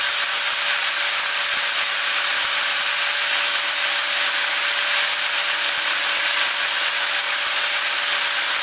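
Handheld electric angle grinder running at full speed, its disc grinding into the steel weld of an AR-15 muzzle brake: a steady motor whine under a harsh, even grinding hiss. It is grinding a flat spot across the weld to uncover the pin beneath it.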